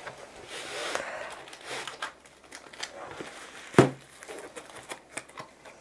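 Cardboard packaging being handled: a rolled item slid back into a long cardboard box, with rustling and small clicks and one sharp knock about four seconds in.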